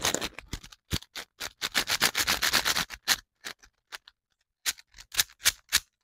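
Plastic speed cube's layers being turned by hand: a quick run of clicking and clattering turns for about three seconds, then a pause, then a few single clicks near the end.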